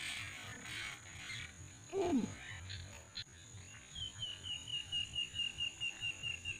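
A short, falling call about two seconds in. From about four seconds, a calling animal starts a quick, even run of high chirps at a steady pitch.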